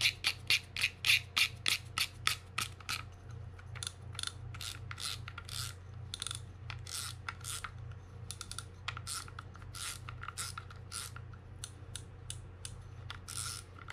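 Penn Clash 8000 spinning reel's drag knob being screwed on and turned, clicking. The clicks come quickly and loudest over the first few seconds, then go on softer in irregular runs.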